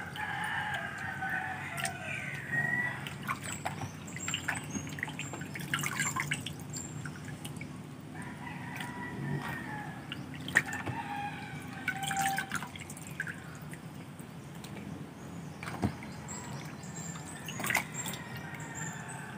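Water dripping and splashing, with a few sharp clicks, while a rooster crows twice: once at the start and again about halfway through.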